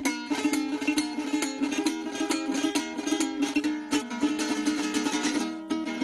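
Venezuelan cuatro, a small four-string guitar, strummed in a quick steady rhythm.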